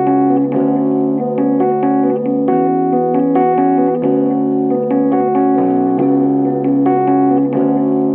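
Background instrumental keyboard music: sustained chords with notes changing every half second or so.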